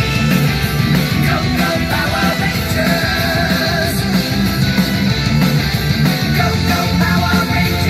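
Rock music with singing played through a Sony SRS-XB20 portable Bluetooth speaker, steady and loud with a strong bass line.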